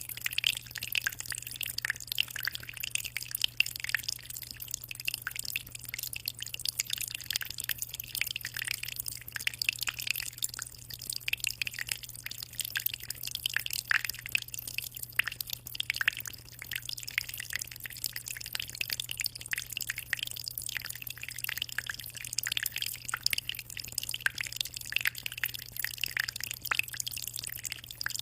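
Aquarium water trickling and splashing, a constant dense patter of small drips and bubbles, over a steady low hum.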